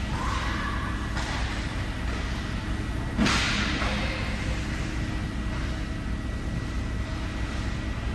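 Ice hockey rink during play: a steady low rumble of the arena, with skate blades scraping the ice in sudden hissing strokes that fade out, the loudest about three seconds in.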